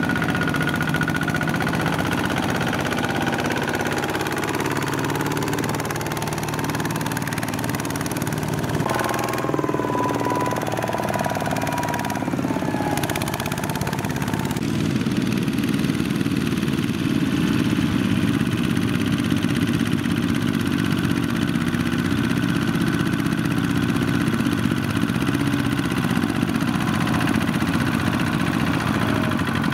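Single-cylinder diesel engines of Kubota two-wheel walking tractors running steadily under load as they pull loaded rice trailers through mud. The sound shifts abruptly a few times.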